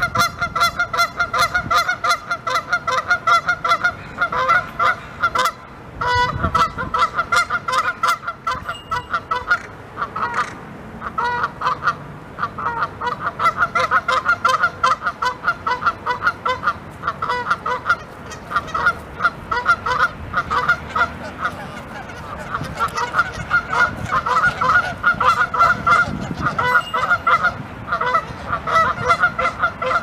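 A flock of Canada geese honking loudly and rapidly, many calls from several birds overlapping almost without pause, with brief lulls about six and ten seconds in. The honking is angry and aggressive, from geese squabbling with their flock.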